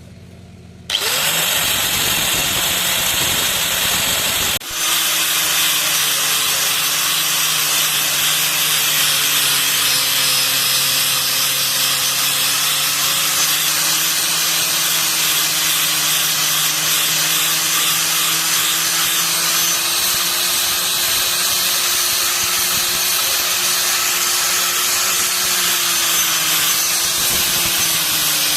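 Electric power tool starting about a second in and running steadily under load with a harsh hiss, faltering briefly about four and a half seconds in.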